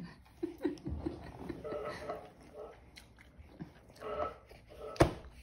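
A baby's short whimpers and grunts after crying, among small clicks and taps. A single sharp knock about five seconds in is the loudest sound.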